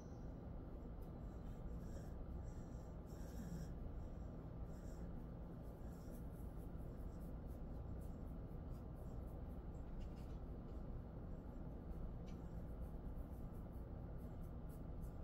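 Fingers rubbing and scratching through a Jindo dog's fur during a belly massage: faint, scratchy rustling, over a steady low hum.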